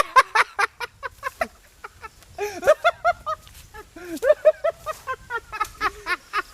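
Short, arching bird calls repeated many times in quick clusters, like domestic fowl, with a run of sharp clicks in the first second and a half.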